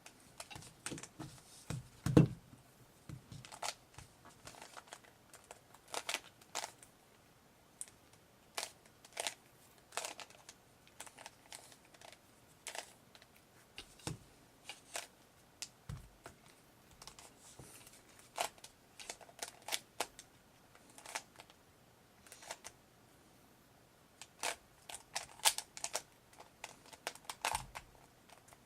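Plastic Rubik's Cube layers being turned by hand during a solve: sharp clicks, some in quick runs of turns and some alone. There is a louder dull knock about two seconds in.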